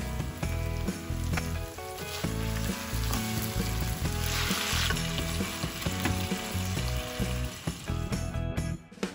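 Boneless chicken thighs sizzling in a pan of olive oil and white wine, stirred with a silicone spatula, with a louder burst of sizzle about four seconds in. Background music plays underneath.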